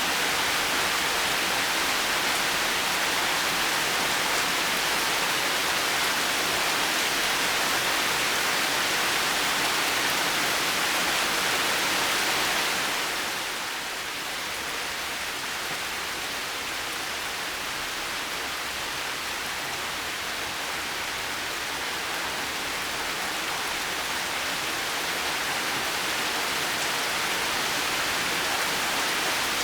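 Heavy rain falling steadily as an even hiss, easing slightly about halfway through and slowly building back toward the end.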